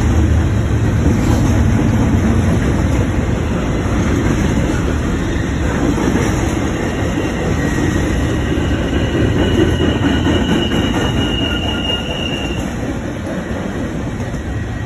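Double-stack intermodal freight train cars rolling past with a steady, loud rumble of wheels on rail. A thin, high wheel squeal rises out of it about six seconds in and fades after several seconds.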